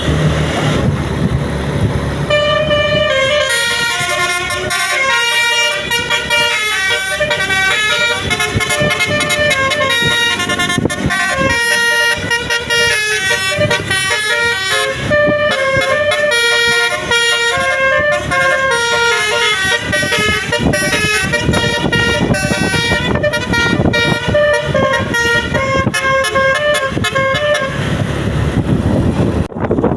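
Tourist bus's telolet horn, a set of musical horns, playing a quick stepping melody of many notes for nearly the whole time. It comes in about two seconds in and stops just before the end, with a low vehicle rumble before and after.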